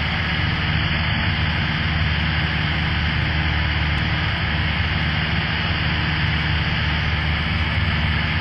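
Cessna light aircraft's piston engine and propeller running at a steady, even drone in flight, with a constant rushing noise over it.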